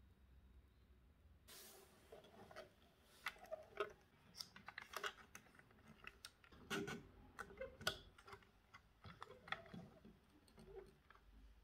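Faint, irregular light clicks and taps, many in quick succession, with a few soft thuds among them.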